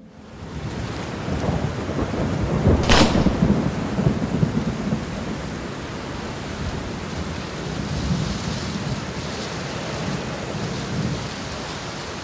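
Steady rain with rolling thunder; a sharp crack of thunder about three seconds in, then the rain continues with low rumbles.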